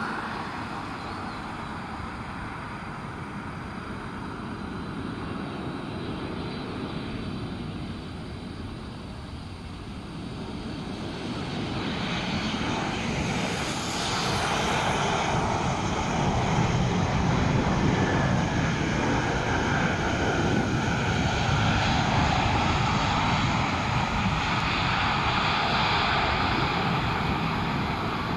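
Boeing 747-8 freighter landing, the jet noise of its four GEnx turbofans. The noise grows louder a little before halfway, as it touches down, and stays loud through the rollout.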